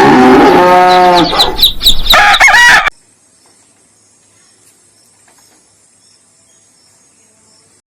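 A goat bleating very loudly for about three seconds, a long drawn call followed by a shorter, higher wavering one, cut off abruptly. After it only a faint steady high insect chirr remains.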